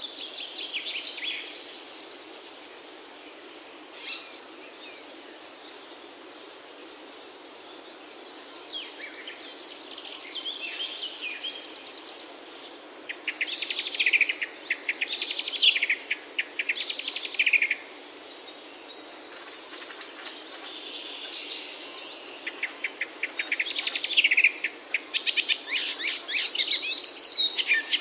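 Several forest songbirds singing and calling: scattered chirps and whistles at first, then bursts of rapid trilled song in the middle and near the end, over a steady background hiss.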